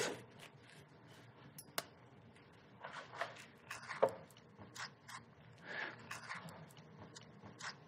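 Faint clicks and scrapes of a knife and spoon working halved avocados: a sharp click about four seconds in as the knife blade is set into an avocado pit, then a spoon scraping the flesh out of the skin into a glass bowl.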